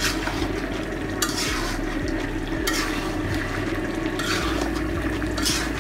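Duck curry frying in a metal pot while a metal spatula stirs it, scraping the pot five times, about every second and a half. The meat is at the dry-frying (kosha) stage, its spice paste almost dried out.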